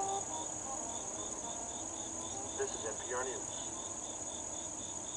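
Insects singing in chorus: a steady high buzz with a chirp pulsing about five times a second.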